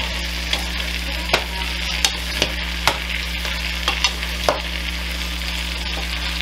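Chopped celery, carrot and onion sizzling steadily in butter in a stainless steel saucepan as they sweat, while a wooden spoon stirs them and knocks against the pan several times.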